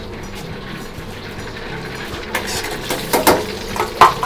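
Metal ladle clanking against a wok a few times, from a little over two seconds in, as cut potato pieces go into the hot oil, over the steady hum of the gas wok range.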